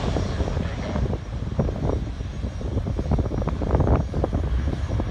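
Strong gusty wind buffeting the microphone in uneven rumbling gusts, over the steady noise of jet airliner engines at the airport.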